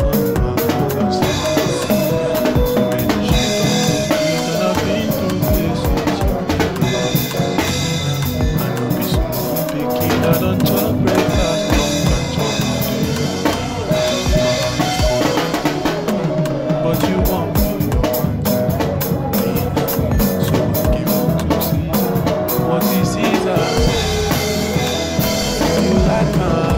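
Acoustic drum kit played hard with sticks: rapid strokes on the snare and tom-toms with bass drum, a busy groove that never lets up.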